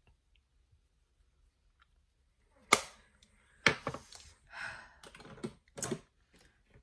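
A few sharp clicks and clacks of makeup brushes and product cases being handled and set down, with some rustling between them, starting a little under three seconds in after near silence.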